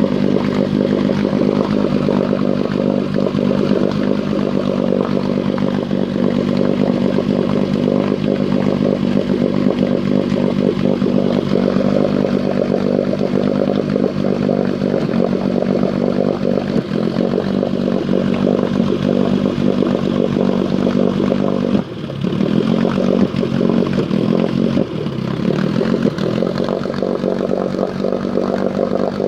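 Engine idling, its speed stepping down as the idle is turned lower. About two-thirds through it stumbles and hunts unevenly for a few seconds before settling: a sputtering, missing rough idle at the low idle setting.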